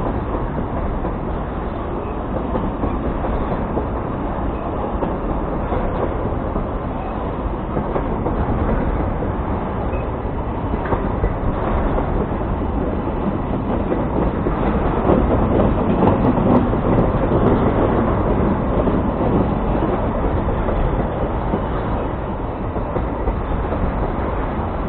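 Empty grain hopper cars of a freight train rolling past, a steady rumble of steel wheels on the rails, growing louder for a few seconds past the middle.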